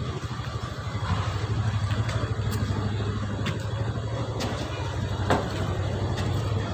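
An engine running steadily with a fast, even pulse, and a few sharp clicks over it, the loudest about five seconds in.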